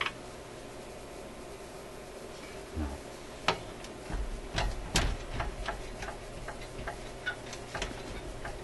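Irregular light clicks and knocks as a hand grips and turns a glass vacuum tube in its socket, starting about three and a half seconds in, over a steady low hum.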